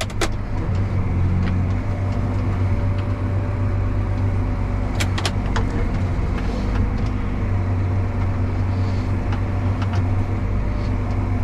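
Tractor engine running steadily at working speed, with a few sharp clicks about five seconds in.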